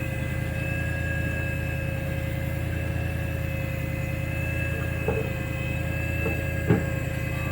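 A motor running at a steady idle, a low drone with a constant high whine over it. Two light knocks, about five seconds in and again near the end.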